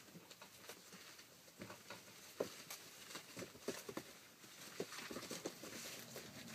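Rough collie puppies' paws scrabbling on paper floor sheets and a wooden step: faint, irregular small clicks and rustles, busier near the end.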